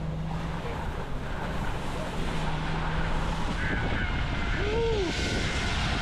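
Pickup truck driving on a wet, slushy highway: the engine runs steadily under a constant hiss of tyres on the wet road, and the hiss grows a little louder about four seconds in.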